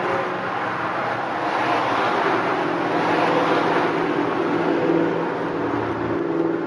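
Car fitted with a Basani X muffler and Dynomax resonators cruising at highway speed: a steady low exhaust drone mixed with road and wind noise, swelling a little in the middle.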